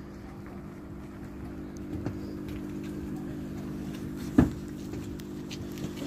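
An engine idling with a steady low hum, with one sharp knock about four and a half seconds in and a few lighter clicks.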